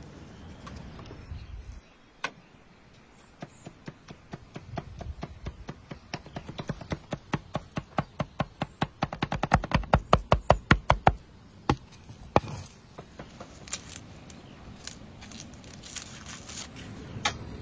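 Meat cleaver chopping raw liver on a wooden block: rapid repeated chops that grow louder and come about four or five a second, stopping about two-thirds of the way through. A few lighter, scattered clicks follow.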